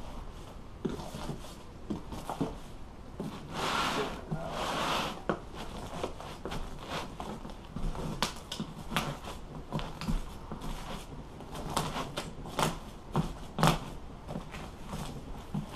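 Staples being pried out of a boat seat's wooden base with a staple puller: an irregular run of sharp clicks and snaps, with a longer rustle of vinyl being pulled away about four seconds in.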